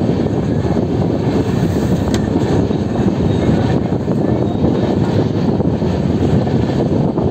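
Passenger train running, heard from on board: a steady, dense rumble of wheels on track mixed with the rush of air.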